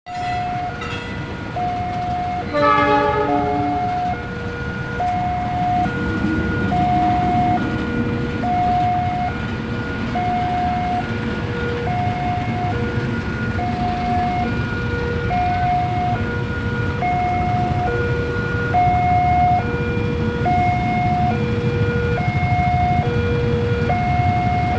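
Level-crossing warning alarm sounding a steady high-low two-tone chime, one cycle about every two seconds. Early on comes a single short, loud chord-like blast from a CC 203 diesel locomotive's horn, and a low rumble then builds underneath.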